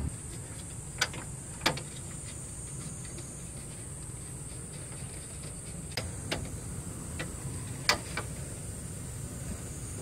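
Several short, sharp clicks and knocks over a steady hiss, the loudest about a second in, just before two seconds and near eight seconds.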